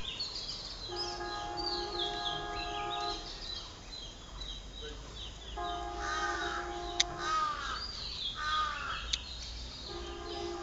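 Outdoor birdsong: many small birds chirping throughout, with a run of harsh arching calls, like crows cawing, in the middle. A steady layered tone is held for about two seconds three times, near the start, in the middle and at the end.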